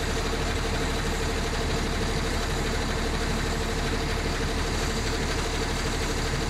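Heavy vehicle engines idling steadily, a low rumble with a constant hum running through it.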